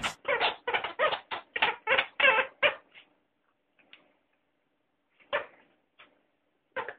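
Rubber chicken dog toy squeaking as a dog chews on it: about ten quick squeaks in the first three seconds, then a pause and a few single squeaks near the end.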